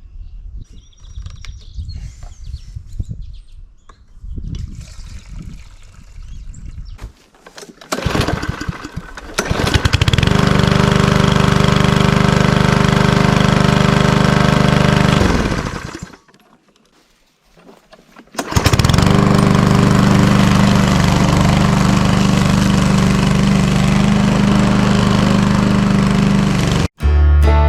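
Four-stroke walk-behind lawnmower engine started after an oil change. It runs steadily for about five seconds, winds down and stops, then starts again and runs steadily until it cuts off abruptly near the end. The first several seconds hold irregular knocks and handling noises before the engine catches.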